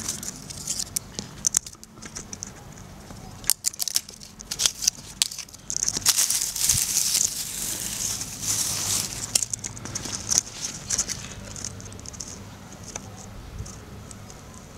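Footsteps crunching through dry grass and fallen leaves, an irregular run of crackles and clicks that thins out over the last few seconds.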